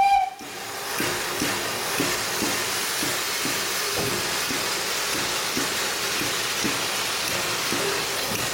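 Brighton Terrier steam tank engine hissing steam loudly, with faint low beats about twice a second under the hiss. The last moment of a steam whistle cuts off right at the start.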